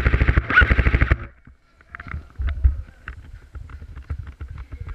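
Airsoft rifle firing one rapid full-auto burst of evenly spaced shots, stopping about a second in. After it come scattered knocks and thuds.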